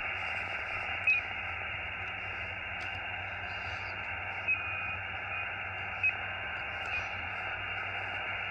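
Xiegu X6100 HF/50 MHz transceiver's receiver hissing with static in USB as its dial is tuned, with several brief whistles as it passes across birdies, the spurious signals the radio generates itself at full RF gain.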